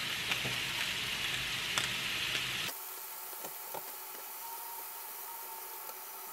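Meat and kimchi sizzling in a frying pan, with a few light clicks. About two and a half seconds in, the sizzle cuts off abruptly, leaving a much quieter hiss with a few faint clicks.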